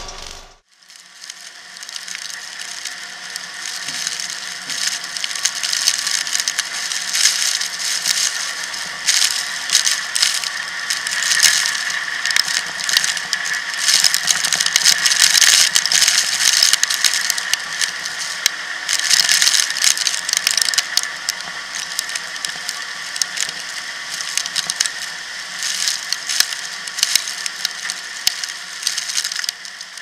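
Harvest machinery running close to the microphone during the rapeseed harvest: a dense, continuous mechanical clatter of fine rattles and clicks over a steady whine.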